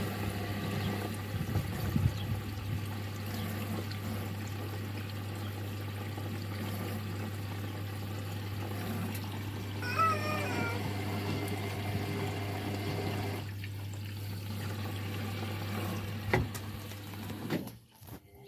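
Indesit EcoTime washing machine taking in water for its rinse: the inlet valve hums steadily under the rush of water, with a short warbling squeal about ten seconds in and a few soft knocks. The fill stops abruptly near the end.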